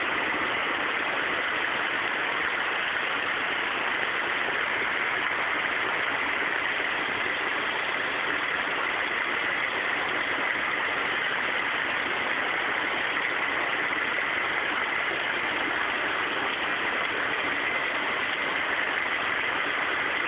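Heavy rain pouring steadily in a storm: a dense, even hiss with no let-up.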